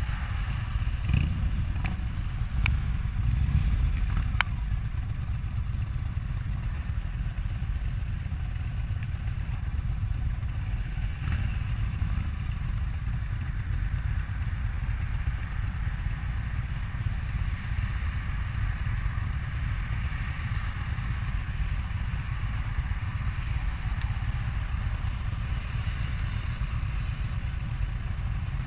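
Harley-Davidson touring motorcycle's engine idling in a steady low rumble while stopped, with the other motorcycles of the group idling too. A few sharp clicks in the first few seconds and one more about eleven seconds in.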